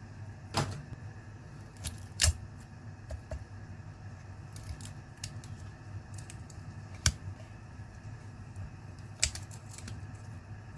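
Sharp clicks and taps of small tools and laptop parts being handled during disassembly, four loud ones a few seconds apart with fainter ticks between, over a steady low hum.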